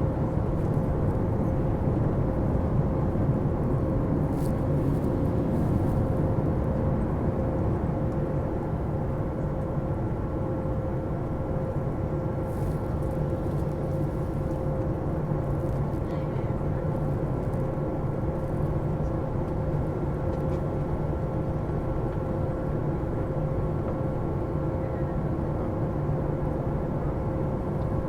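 Jet airliner climbing after takeoff, heard from inside the cabin: a steady low engine drone and rush of air with a constant hum running through it, easing slightly a few seconds in.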